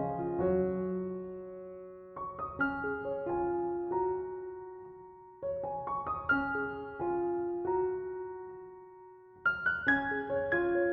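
Background music: a gentle solo piano piece, phrases of struck notes that die away, with a new phrase beginning about every three to four seconds.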